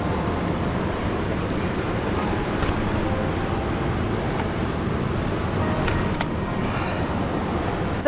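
Steady rushing of flowing river water, with a few faint clicks.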